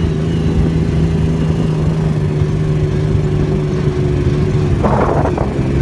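Turbocharged Yamaha YXZ1000R side-by-side's three-cylinder engine running at a steady speed under way, heard from the cab, with a brief rush of noise about five seconds in.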